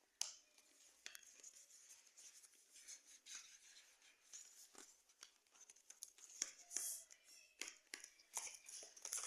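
Packaging being handled, heard as soft rustling and crinkling with irregular small clicks and ticks throughout.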